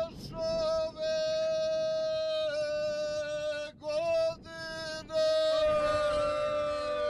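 Herzegovinian ganga, unaccompanied folk singing: a high voice holds long notes, broken by short breaths, over a lower drone. From about five and a half seconds in, the voices waver and slide against each other.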